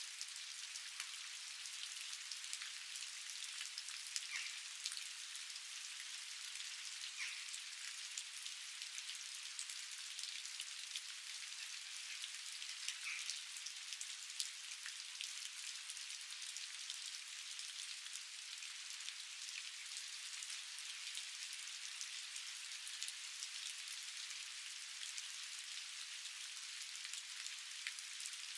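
Steady rain falling outdoors: an even hiss with scattered individual drops ticking on surfaces.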